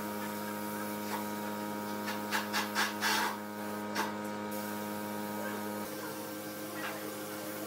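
Steady multi-tone machine hum with short hisses from a gravity-feed spray gun spraying finish: several quick bursts about two to three seconds in and one more at about four seconds. The lower part of the hum drops away about six seconds in.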